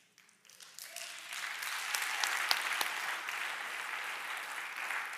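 Audience applauding, building up over the first couple of seconds and then holding steady.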